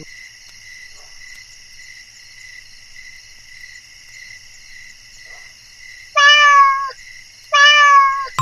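A cat meowing loudly twice near the end, over a steady, pulsing chorus of crickets chirring.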